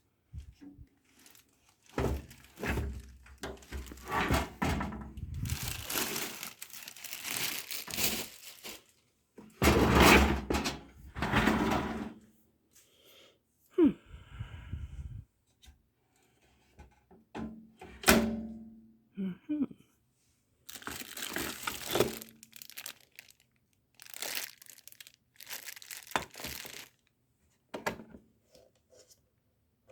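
Packaging being handled during an unboxing: irregular thuds and knocks as a boxed appliance and cardboard are shifted, with bursts of crinkling and tearing of packing material.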